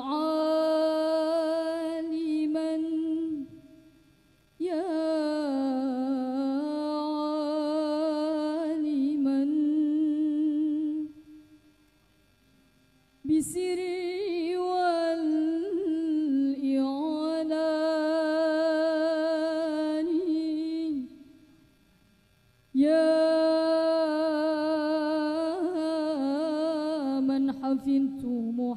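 A female voice singing unaccompanied in the al-banjari style of Islamic devotional song, in four long melismatic phrases with a wavering, ornamented pitch and short pauses between them. No drums play.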